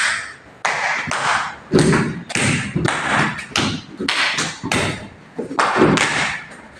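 A person doing a swimming-pose yoga exercise on the floor: a rapid, rhythmic series of thuds, about two a second, each with a breathy rush of air.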